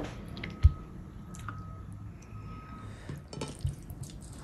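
A few small clicks and taps from eating at a table, with a dull thump just under a second in and another near the end.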